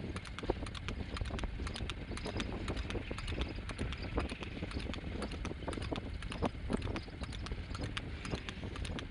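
Horse trotting fast on an asphalt road, pulling a two-wheeled cart: a quick, steady clatter of hoofbeats over a low rumble.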